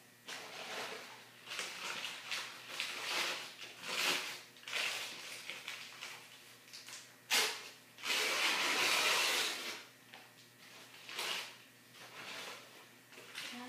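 Rustling and handling noises in short bursts, with a sharp knock about seven seconds in and a longer, louder rustle just after it.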